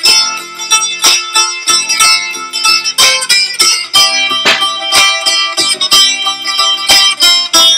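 Music: a fast melody on a plucked string instrument, with quick sharp note attacks several times a second.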